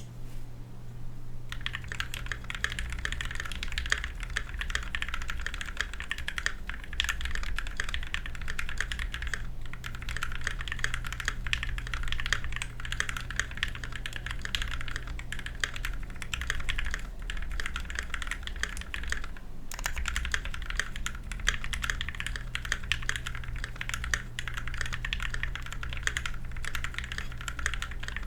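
Continuous fast typing on a custom KBD67 V2 MKII 65% mechanical keyboard with lubed and filmed linear Gateron Yellow switches, a brass plate, case foam and ABS keycaps. The typing begins about a second and a half in and breaks off briefly twice. A steady low hum runs underneath.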